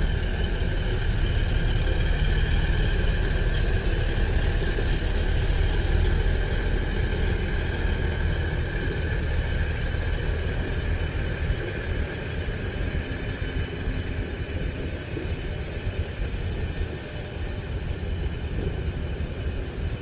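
ICE-TD class 605 diesel multiple unit rolling past, its underfloor diesel engines giving a steady low drone with a steady whine above it. The sound eases a little about halfway through as the train moves along.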